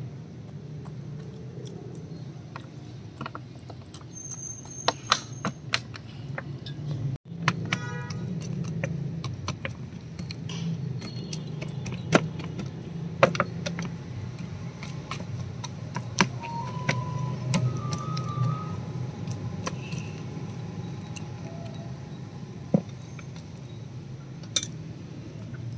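Metal fork stabbing into raw chicken pieces, its tines clicking against the tray in scattered sharp clicks, over a steady low hum.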